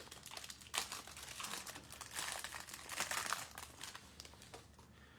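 Plastic trading-card pack wrapper crinkling as it is handled and opened, fading out about four and a half seconds in.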